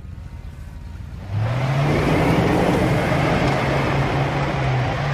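Pickup truck engine revving up about a second and a half in and holding high while a wheel spins in the grass without grip. The truck is stuck and not pulling.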